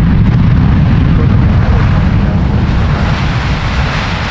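Jet airliner engine noise: a loud, steady deep rumble with a hiss over it, easing slightly near the end.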